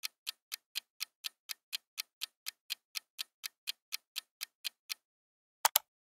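Clock-style ticking sound effect for a countdown timer, about four even ticks a second for five seconds, then stopping. Near the end come two quick, louder clicks.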